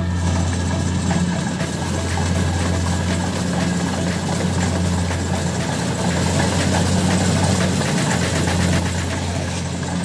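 Kubota DC70 Plus combine harvester's diesel engine running steadily under load while cutting and threshing rice, a low drone with a dense mechanical rattle above it.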